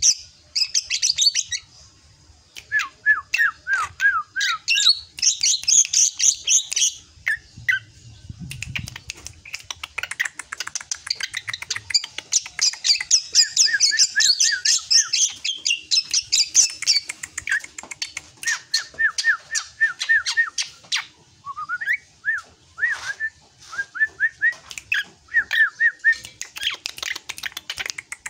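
Juvenile drongo singing: fast, chattering series of high notes alternating with runs of short down-slurred whistles lower in pitch, broken by a couple of brief pauses.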